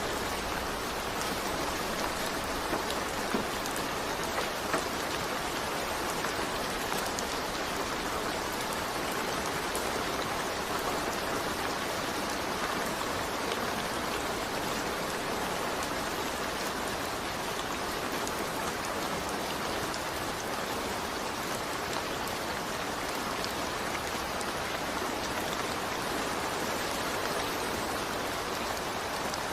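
Steady rain falling and pattering on a surface, with a few slightly louder drops in the first few seconds.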